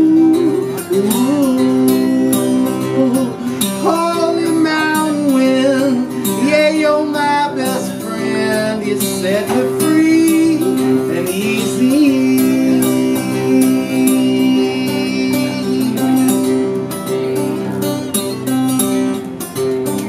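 Acoustic guitar strummed steadily, with a man singing long sliding notes over it through the middle stretch.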